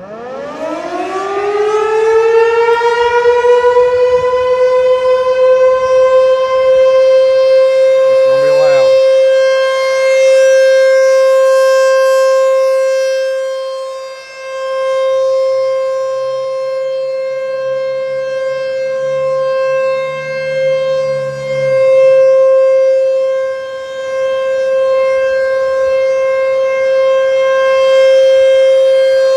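ASC T-128 outdoor warning siren winding up, its pitch rising over about three seconds, then holding one steady tone, its loudness swelling and fading every few seconds.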